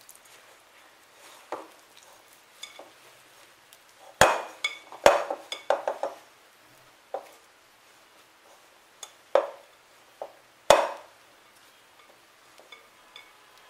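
Hands kneading stiff flour dough in a glass mixing bowl: soft rubbing and squishing, broken by irregular knocks and clinks of the glass bowl. The loudest knocks come about four, five and eleven seconds in.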